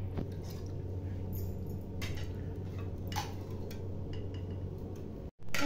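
A few light clinks of a steel ladle against steel bowls and a steel pot as curry is served, over a steady low hum. The sound cuts out for an instant near the end.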